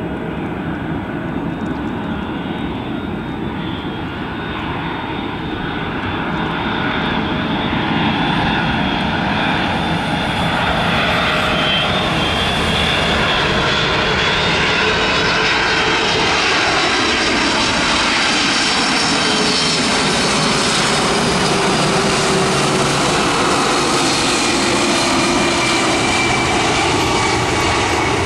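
Jet engines of a four-engined Boeing 747-400 on final approach, gear down, passing overhead: a rumble that grows louder about seven seconds in and then holds, with engine whines that slide down in pitch as the jet goes by.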